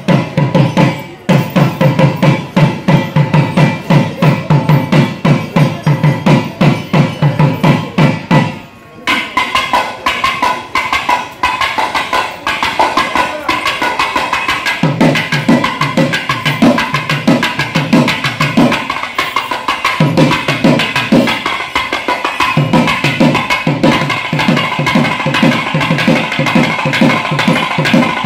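Percussion music of fast, even drum strokes. About nine seconds in the deep strokes drop out and a steady high tone comes in; the deep strokes return about fifteen seconds in.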